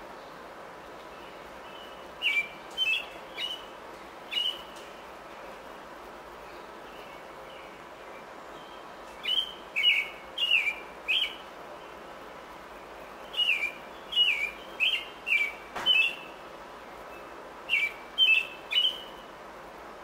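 A songbird calling: short, clear, slightly falling chirps in groups of three to five, with pauses of several seconds between the groups.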